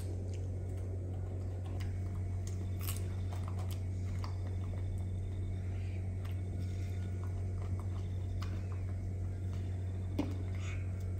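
A steady low hum throughout, with scattered faint clicks and small rustling noises of a baby monkey handling and chewing a piece of cucumber inside a cardboard box.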